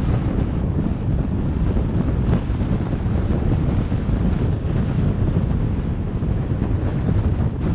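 Wind buffeting the microphone of a camera on a moving vehicle, a steady low rumble mixed with road and engine noise.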